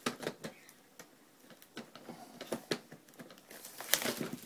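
Clear plastic packaging wrap rustling and crinkling as it is handled and pulled off a new printer, with scattered small handling clicks, loudest near the end.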